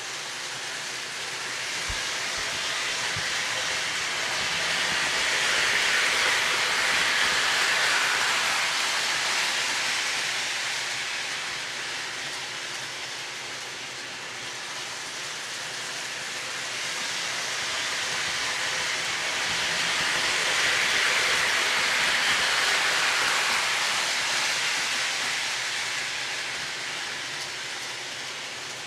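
O gauge model train (Williams B&O EMD GP9 locomotive pulling a few cars) running on three-rail track: a steady rolling rumble of wheels and motor that swells twice, about fifteen seconds apart, as the train comes round the loop toward the camera and then fades.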